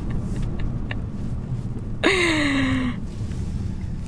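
Car cabin road and engine rumble while driving slowly. About halfway through comes a single drawn-out vocal sound from a person in the car, lasting about a second and sliding down in pitch.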